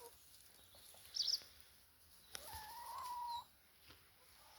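Backyard chickens calling: a short high chirp about a second in, then one drawn-out hen call lasting about a second.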